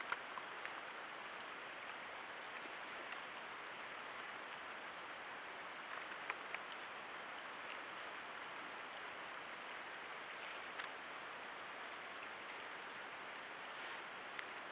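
A steady low hiss with a few faint clicks and snaps scattered through it, as a beaver handles and sets branches on its lodge of sticks.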